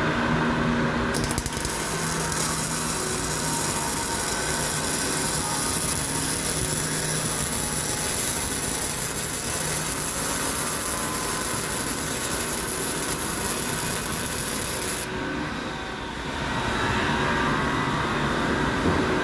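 Electric arc welding on steel: the steady hiss of the welding arc starts about a second in and cuts off about fifteen seconds in, over a low steady hum.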